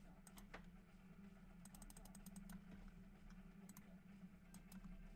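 Faint, scattered clicks of a computer keyboard and mouse, with a quick run of keystrokes about two seconds in, over a steady low hum.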